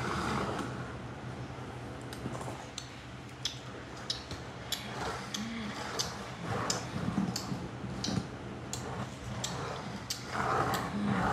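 Light, irregular clicks of small die-cast toy cars being handled and set down on a play mat, with some soft rustling.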